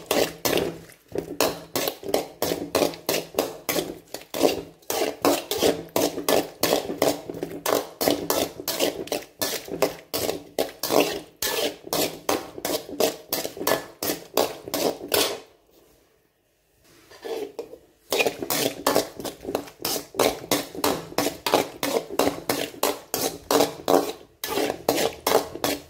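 A utensil stirring and scraping chopped onions around a cooking pan while they sauté, a rapid run of clattering strokes about five a second, with a pause of about two seconds past the middle.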